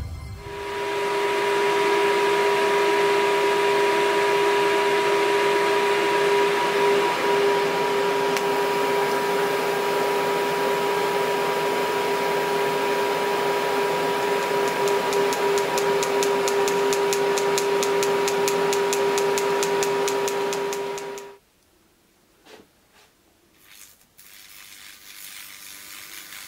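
TIG welding arc from an EWM Tetrix 300 AC/DC Comfort 2.0 on stainless steel: a loud, steady hiss with a steady hum tone through it, cutting off suddenly about 21 seconds in. After that only faint, scattered noises remain.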